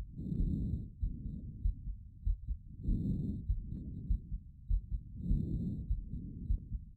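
Lung sounds heard through a stethoscope: breaths about every two and a half seconds, each a louder inhale followed by a softer exhale, with low heartbeat thuds underneath.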